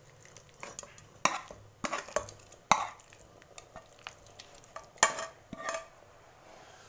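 A metal ladle scraping turnip masala off a pan into a pressure cooker of cooked kidney beans and starting to stir it in, with scattered sharp knocks and scrapes of metal on metal, the loudest about five seconds in.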